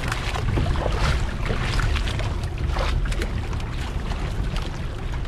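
Sound aboard a small fishing boat at sea: a steady low rumble with wind buffeting the microphone and irregular rushing noise from wind and water.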